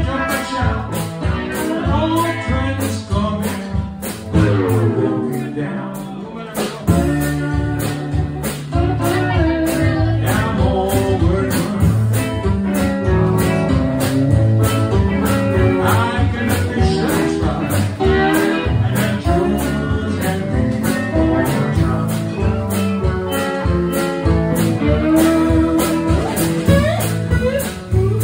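Live blues band playing: electric guitars over a stepping bass line with a steady beat, and a voice singing.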